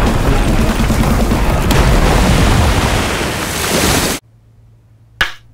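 Loud rushing crash of a water surge sound effect, a great wave of water pouring down, brightening toward the end and cutting off abruptly about four seconds in. A short swish follows about a second later.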